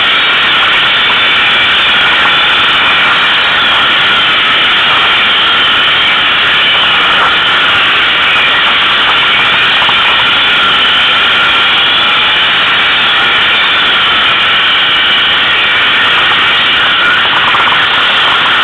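ATV engine running steadily under way, loud and even with little change in pitch, heard from on the moving quad.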